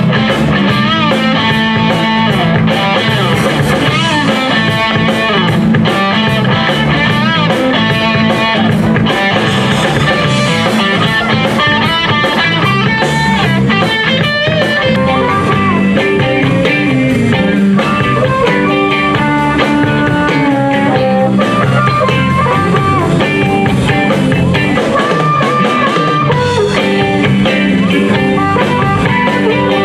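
Live rock band playing a blues-rock number through a PA: electric guitar lines over a drum kit.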